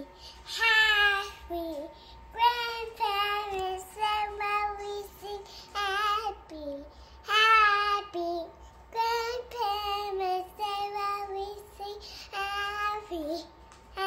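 Young girl singing alone, a run of short phrases of held, wavering notes, with a faint steady tone underneath.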